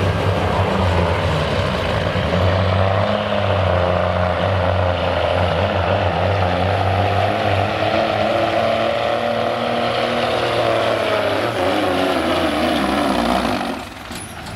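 1999 Peterbilt 379 semi truck's diesel engine running hard under full load while pulling a weight-transfer sled, loud and steady. The sound drops sharply near the end.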